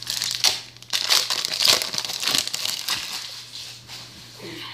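Dragon Ball Z trading-card pack wrapper crinkling and rustling in the hands as the pack is opened: dense, crackly rustling for about three seconds that then dies down.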